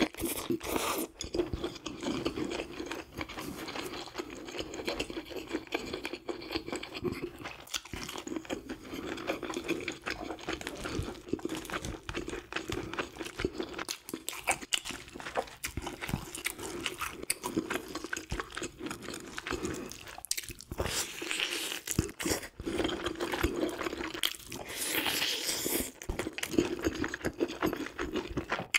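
Chewing of grilled fish, with frequent small crunches and mouth clicks.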